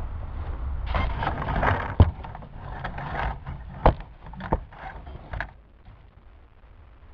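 Handling noise right at the model plane's onboard camera: rustling and scraping with a few sharp knocks as a hand grabs and lifts the downed plane.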